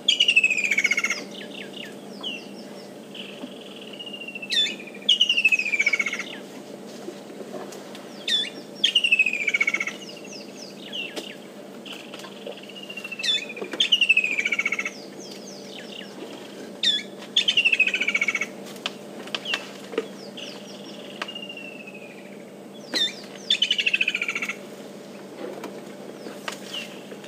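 Kingfisher singing repeatedly. Each loud phrase is a sharp note followed by a fast trill falling in pitch, about six phrases spaced four to five seconds apart, with softer single notes between them.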